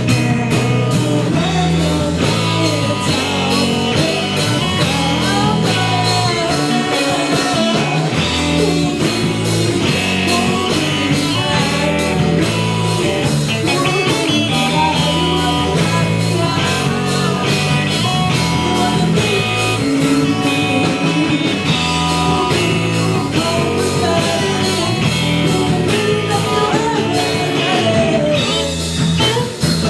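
Live rock band playing an instrumental passage: guitar over bass and drums, with a steady beat.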